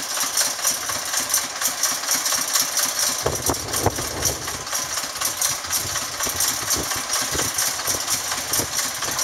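Wls50 narrow-gauge diesel locomotive's engine running steadily at low revs with a regular pulsing beat as the locomotive moves slowly.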